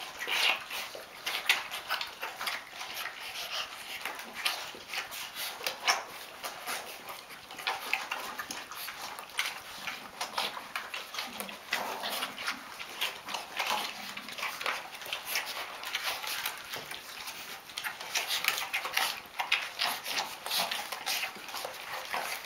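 Five-week-old Rhodesian Ridgeback puppies eating together from one shared pan: a dense, irregular clatter of lapping, chewing and smacking.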